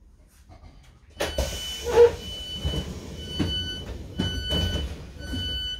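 Train door warning beeps, a steady two-pitch tone repeating about once a second, five times, with a loud clunk about two seconds in.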